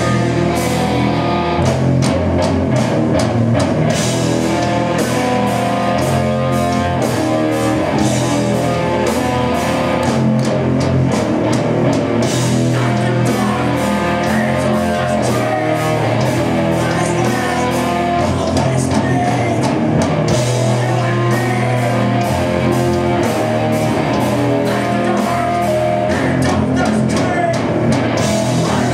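Rock band playing live at full volume: electric guitar through amplifiers over a drum kit beating out fast, steady drum and cymbal hits.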